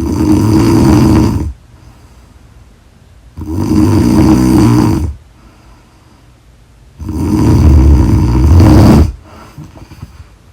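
A woman snoring loudly in a slow, regular rhythm: three long snores, each about one and a half to two seconds, coming roughly every three and a half seconds with quiet breaths between.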